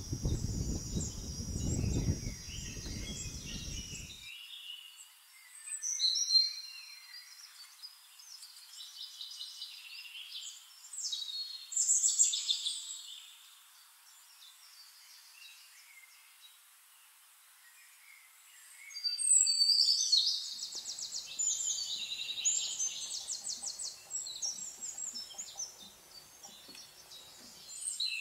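Birds chirping and whistling, with fast repeated trills about twenty seconds in. A low rumbling noise underneath cuts off suddenly about four seconds in.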